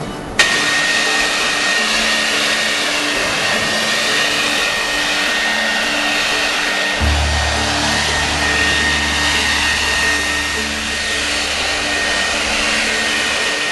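Corded electric leaf blower running steadily: a loud rush of air with a steady high whine from its motor, starting sharply about half a second in.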